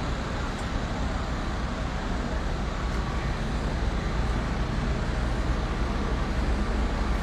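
Diesel engines of heavy vehicles idling, a steady low rumble that grows slightly louder towards the end.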